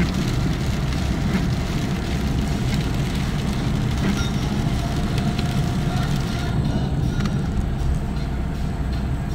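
Car cabin noise at motorway speed on a wet road: a steady low rumble of engine and tyres with the hiss of tyre spray. The hiss drops away about six and a half seconds in as the car enters a tunnel.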